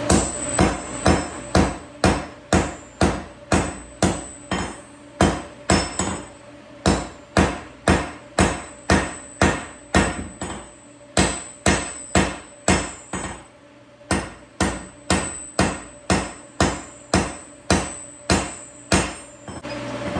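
Hand hammer forging a hot O1 tool-steel bar, striking about twice a second with a high metallic ring after each blow, in runs broken by a few short pauses.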